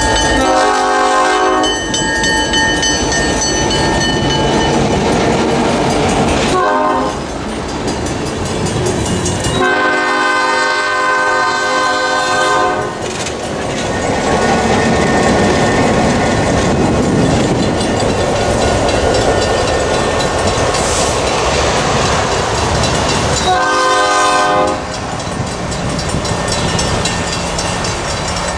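GP9 diesel locomotive's horn sounding four blasts as the train passes close by: a long blast, a short one, a long one, and a shorter one near the end. Between the blasts, the locomotive's diesel engine runs and the wheels clack over the rail joints.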